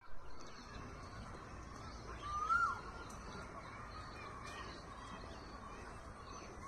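Birds calling over a steady low rumble. One louder call rises and then drops sharply about two and a half seconds in, with faint high chirps around it.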